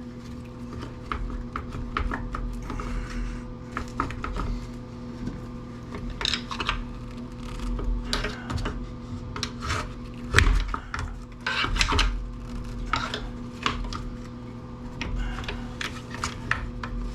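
Irregular clinks, clicks and rattles of hand tools and small metal parts being handled while a power planer is taken apart, the loudest knocks a little after ten seconds in and again about two seconds later, over a steady low electrical hum.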